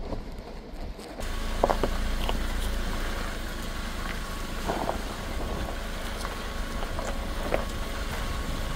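Jeep Wrangler driving along a gravel track: a steady rumble of engine and tyres with wind on the microphone, and a few sharp clicks of gravel under the tyres. The sound steps up about a second in.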